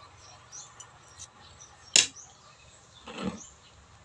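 Quiet sounds of someone eating a mouthful of rice and fish from a spoon: one sharp click about two seconds in, and a soft mouth sound a little after three seconds.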